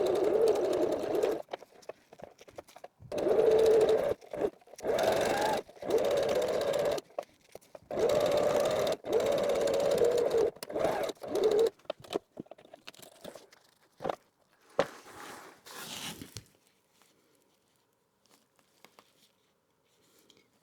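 Sewing machine stitching backpack strap webbing in several runs of one to four seconds with short pauses between. It stops about twelve seconds in, and a few clicks follow.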